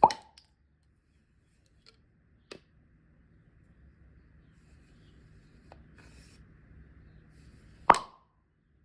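Two sharp pops, one at the start and one near the end, with a fainter click about two and a half seconds in.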